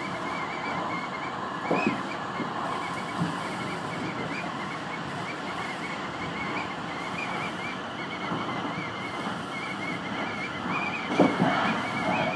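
Tobu 50000 series electric train running at speed, heard from inside its front car: a steady rumble of wheels on rail with a thin, wavering high whine throughout and a few knocks over rail joints, one about two seconds in and a louder one near the end.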